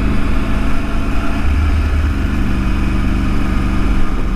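Motorcycle engine running at low cruising speed, heard from the rider's seat with wind and road noise. The steady engine note breaks briefly about a second and a half in, then settles again.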